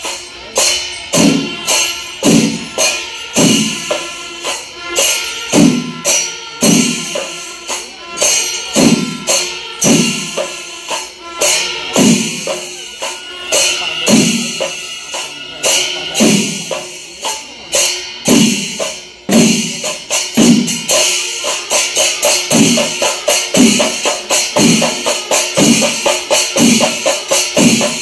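Kerala temple percussion ensemble: chenda drums beating a steady, driving rhythm with cymbals clashing continuously over it.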